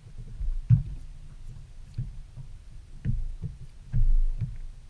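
Small waves slapping against a boat's hull: irregular low thumps and knocks, with the loudest around the middle and near the end.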